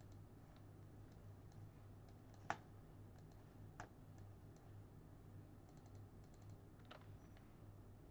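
Faint, scattered clicks of a computer mouse and keyboard over a low steady hum: a sharp click about two and a half seconds in, another a little over a second later, a quick run of faint taps around six seconds and one more click near seven seconds.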